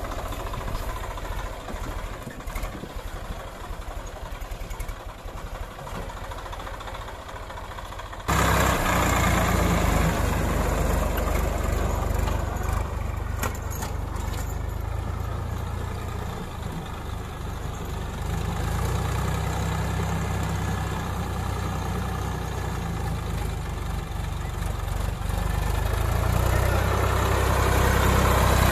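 Swaraj 960 FE tractor's three-cylinder diesel engine running steadily under load while it pulls a working rotavator through the soil. About eight seconds in the sound suddenly gets louder and fuller, and it swells again near the end.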